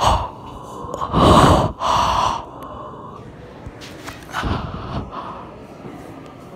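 A person breathing loudly and noisily through a wide-open mouth right at the microphone. There is a sharp gasp at the start, then two long breaths about a second in, the loudest part, and a shorter breath a little past four seconds.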